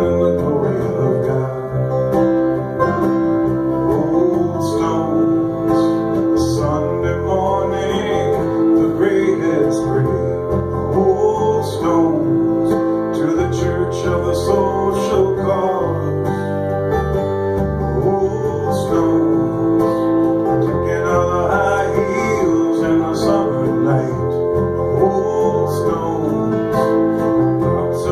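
A man singing a song live while strumming an acoustic guitar.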